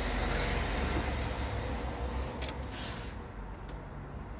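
Car keys jingling at the ignition as the key is handled, with a few light clinks about two and a half and three and a half seconds in, over a steady low hum.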